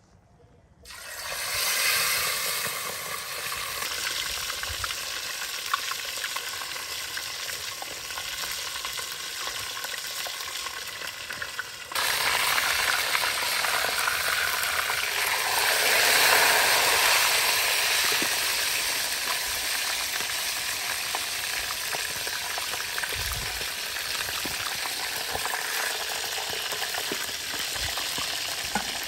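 Food sizzling as it fries in hot oil in a pan. The sizzle starts about a second in, jumps suddenly louder about twelve seconds in, swells a few seconds later, then settles.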